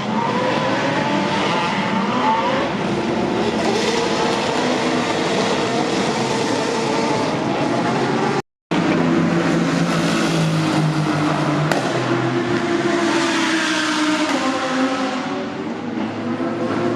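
Racing car engines running hard at speed, their pitch sliding up and down with the revs. The sound cuts out completely for a moment about halfway through, then a lower, steadier engine note takes over.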